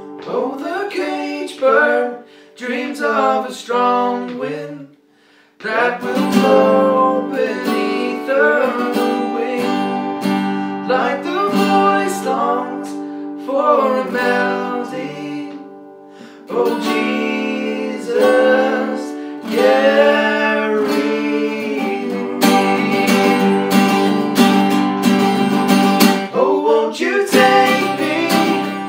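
An acoustic guitar strums and an acoustic bass guitar plays a slow country song while a man sings. The music drops out briefly about five seconds in, then comes back.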